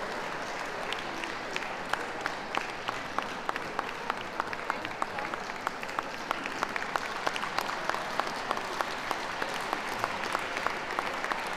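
Ringside audience applauding, individual hand claps heard separately several times a second.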